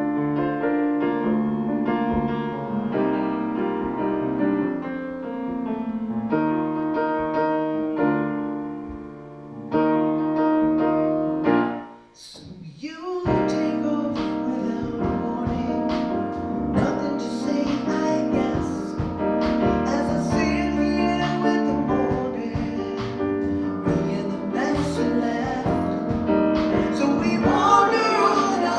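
Slow ballad from a live band: solo piano for about the first twelve seconds, then after a brief pause upright bass and drums with cymbals join the piano, and a female singer comes in near the end.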